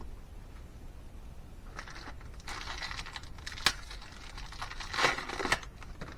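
Hands-on handling noise while fitting valves into an LS cylinder head: rustling and scraping starts about two seconds in, with one sharp click in the middle and a louder scrape about five seconds in.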